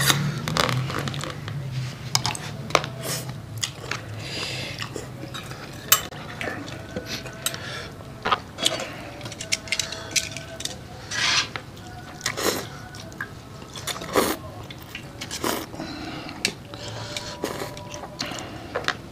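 Chopsticks and metal tongs clinking and knocking against bowls and a metal wok at irregular moments while curry noodles are served and eaten.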